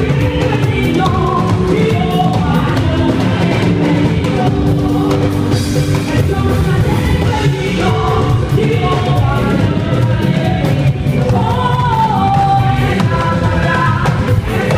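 Loud music: voices singing a wavering melody over a steady beat of drums and instruments.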